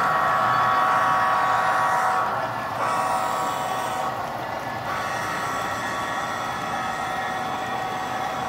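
Model freight train rolling past behind a diesel model locomotive, a steady hum of several tones that is loudest in the first two seconds and drops a little as the locomotive goes by.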